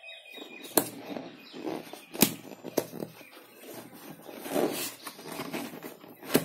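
Cardboard box being handled and opened by hand: rustling and scraping of cardboard, with a few sharp taps and clicks.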